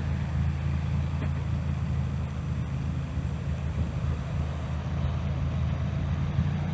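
Muffler-deleted Toyota Celica's four-cylinder engine idling steadily at a constant pitch, a deep exhaust note with no revving.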